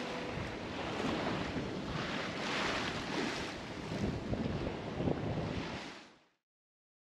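Sea water rushing and splashing along the hull of an Alberg 30 sailboat under way in open-ocean swell, with wind buffeting the microphone. The sound rises and falls in surges and fades out about six seconds in.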